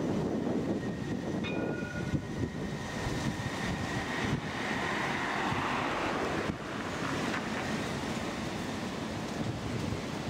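CAF Urbos 3 tram running past on street track, a steady rolling rumble mixed with passing road traffic and wind noise on the microphone. A short high tone sounds about a second and a half in.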